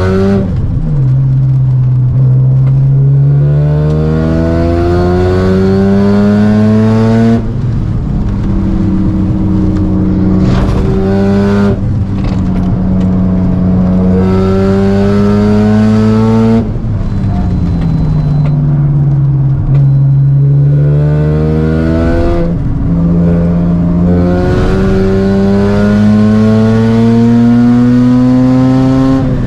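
Mazda RX-7 FD3S's single-turbo 13B two-rotor rotary engine under hard acceleration on track, heard from inside the cabin. Its pitch climbs through each gear and drops sharply at several upshifts or lifts, about five times.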